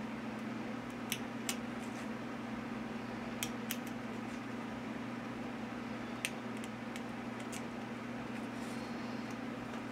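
Small knife blade cutting into a feather quill's shaft to trim the nib angle: crisp clicking snips, a pair about a second in, another pair a couple of seconds later and a few more after, over a steady low hum.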